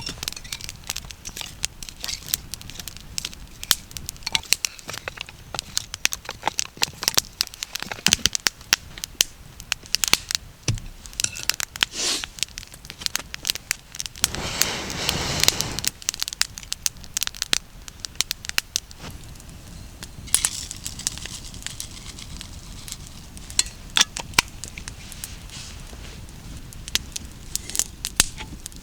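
Wood campfire crackling, with a dense run of sharp snaps and pops. About halfway through, a rushing noise swells for a second or two.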